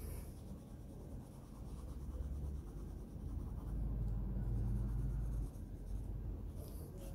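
Colored pencil rubbing and scratching back and forth on paper as a drawing is shaded in, louder for a stretch about halfway through.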